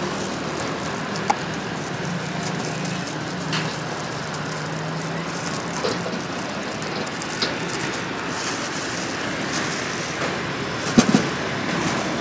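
Steady street traffic noise with a low hum, broken by a few faint clicks of a knife as fruit is sliced, and a short clatter about eleven seconds in.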